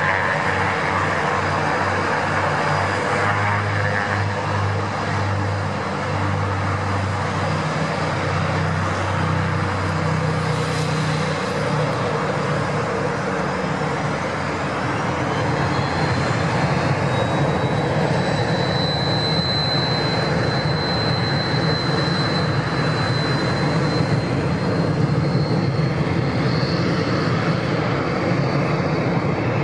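Twin turboprop engines of a North American OV-10 Bronco at power for takeoff: a steady propeller drone, with a high turbine whine that rises about halfway through and then holds.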